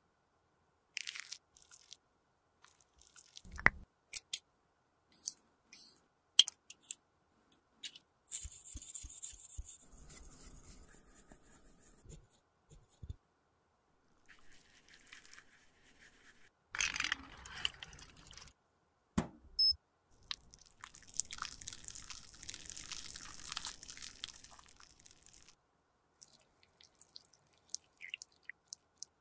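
Close-up handling sounds of lipstick being repaired: scattered sharp clicks and taps of the lipstick case, with several stretches of scraping and rubbing, among them a cotton swab scrubbing inside a small plastic lipstick holder.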